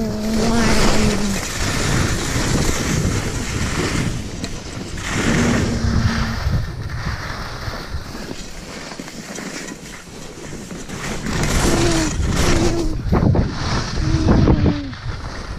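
Wind rushing over an action camera's microphone as the skier slides downhill, with the hiss of skis on snow. The rush eases a little in the middle and picks up again. A voice holds a few short, drawn-out notes near the start, about five seconds in, and toward the end.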